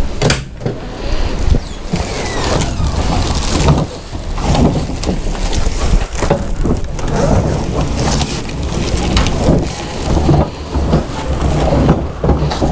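Tarp and stretch-wrapped cardboard box rustling, crinkling and scraping in a pickup truck's bed as the box is handled, with irregular knocks and bumps.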